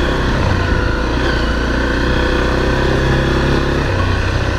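Honda CRF250L's single-cylinder four-stroke engine running under way on a dirt trail, with the engine note shifting slightly about half a second in and again near four seconds.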